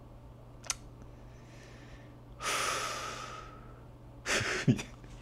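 A man sighing, one long breath out close to a clip-on microphone about two and a half seconds in that fades over about a second. A few short mouth or throat noises follow near the end, over a steady low hum.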